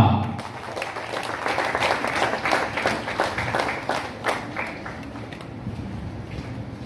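Audience applauding with dense clapping that fades over the last couple of seconds.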